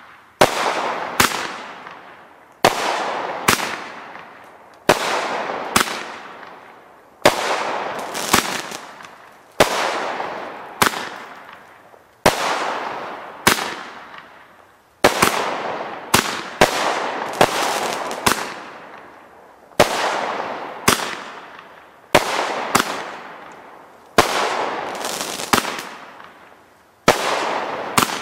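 16-shot consumer fireworks cake (Pro-Line Summa Cum Laude) firing shot after shot, one every second or two, often in close pairs. Each shot is a sharp bang followed by a crackling tail that fades over a second or two.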